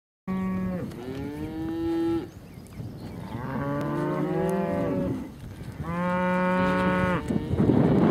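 Cows mooing: three long, loud moos one after another, the middle one with more than one cow calling at once.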